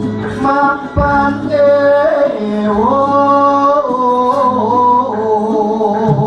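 A male voice singing a Javanese palaran tembang solo in long, slowly sliding and wavering held notes, over gamelan accompaniment with low sustained tones and a single low drum or gong stroke about a second in.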